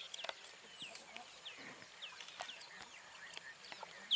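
Bird calls: a series of short, downward-sliding chirps repeated every half second or so, with scattered sharp clicks.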